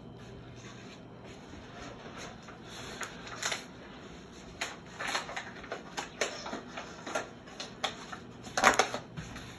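Kitchen items being handled: irregular clicks, crinkles and knocks that grow busier after a few seconds, with a loud cluster near the end, over a steady low hum.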